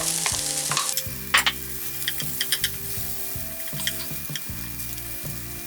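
Button mushrooms, peppers and onions sizzling in olive oil in a frying pan, with a utensil stirring them and clicking against the pan a few times.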